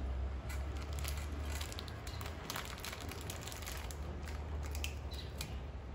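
Scattered soft crackles and crunches of a crunchy snack being eaten, clustered in the middle, over a steady low hum.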